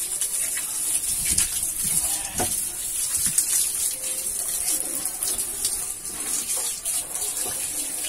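Water from a hand-held hose spraying onto a car engine and into its engine bay, a steady hissing spatter on the metal parts, with a few short louder splashes in the first few seconds.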